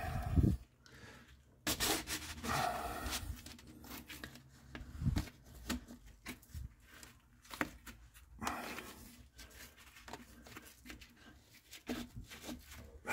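Gloved hands rubbing and pushing on Palisade interlocking wall tiles while trying to slide a tile along, with scattered light clicks and knocks and a few longer scraping passes.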